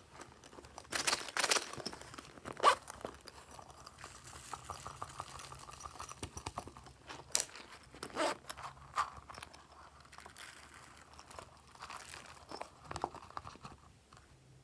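Hands squeezing and picking at pineapple-shaped squishy toys, making irregular crinkling and crunching crackles that come in clusters, strongest a second or two in, again around eight seconds, and near the end.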